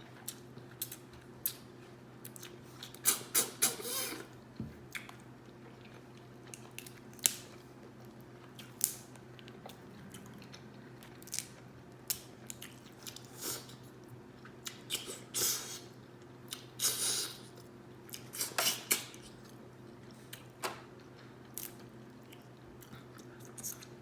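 Close-miked mukbang eating of a seafood boil: wet chewing and smacking, with scattered short, sharp cracks and clicks at irregular intervals. A steady low hum runs underneath.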